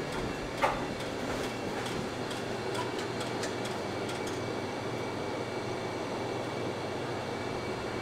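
Compact-disc jukebox's disc-changer mechanism running steadily after a song selection, with a few faint clicks, as it fetches the chosen disc before playback starts.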